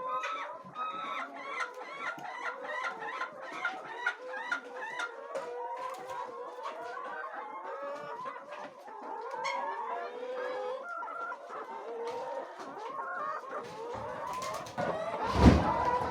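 A flock of laying hens clucking and calling, many short overlapping calls, with a loud thump near the end.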